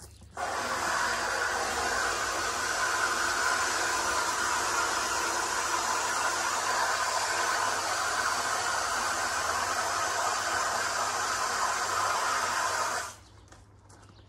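Water spraying from a garden hose: a steady hiss that starts suddenly and cuts off near the end.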